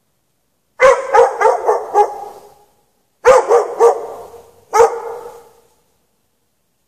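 A dog barking in three bouts: a quick run of about five barks, then two or three more, then a single bark, each bout trailing off in an echo.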